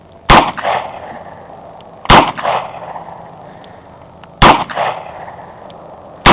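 Four shots from a .38 Special revolver fired at a steady pace about two seconds apart, the last right at the end. Each report is followed by an echo about a third of a second later.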